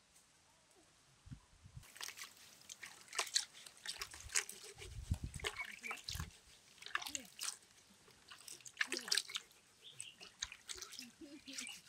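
Hands scrubbing cassava roots in a plastic bucket of muddy water: irregular splashing and sloshing that starts about two seconds in, with a dull low knock around the middle.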